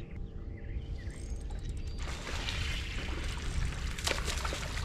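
Water rushing and splashing, starting about two seconds in, over a steady low rumble, with a few bird chirps in the first second.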